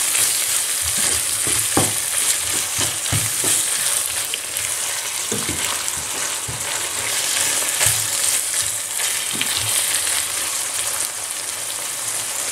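Ground beef, onions and tomato-pepper paste sizzling in a deep pan while being stirred, with a wooden spoon scraping and knocking against the pan now and then. The paste is being fried until its raw sour taste cooks off.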